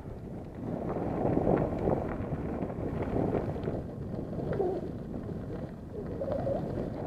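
Wind rushing over the microphone of a bicycle-mounted action camera while riding, with a dove cooing a couple of times in the second half.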